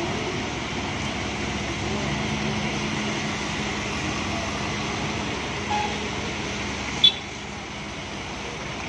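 Steady hiss of rain and tyres on a wet road with motorcycles and cars passing and a low engine hum. A short sharp click about seven seconds in.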